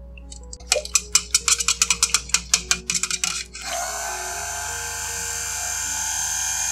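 A spatula clicking and scraping against a stainless steel pot as oils and lye solution are stirred. About three and a half seconds in, an immersion stick blender starts and runs steadily in the mixture, emulsifying the soap batter.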